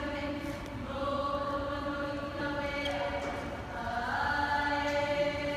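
Hawaiian hula chant sung by a group of voices in unison, in long held notes with an upward slide about four seconds in.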